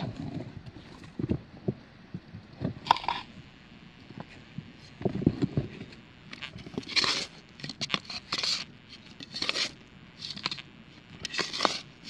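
Shovel digging and scraping into the ground in irregular crunching strokes, which come thicker in the second half.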